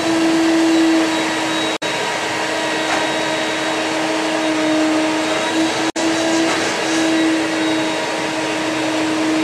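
Vacuum cleaner running steadily with a whine that wavers slightly in pitch. It is used to clean the inside of a steel hull ahead of rustproofing. The sound cuts out for an instant twice, about two and six seconds in.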